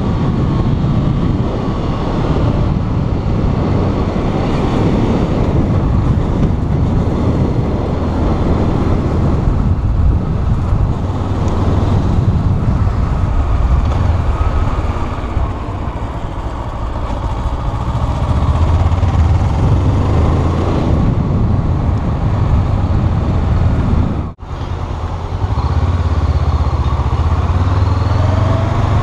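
Honda CBR500R's two-cylinder engine running under way, mixed with a heavy rush of wind noise. The sound eases off around the middle and builds again, and drops out for an instant about three-quarters of the way through.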